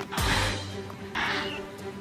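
Background electronic music: a held low drone, a falling bass sweep just after the start, and short hissing beats about a second apart.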